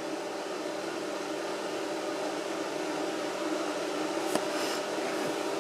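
A steady mechanical hum with several held tones, from a machine such as a fan or appliance running. Two faint short ticks come about four and a half seconds in.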